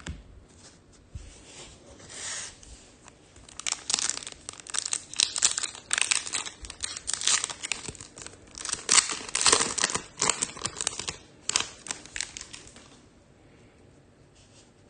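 A foil trading-card pack wrapper being torn open and crinkled, with dense crackling for several seconds in the middle, then dying down near the end.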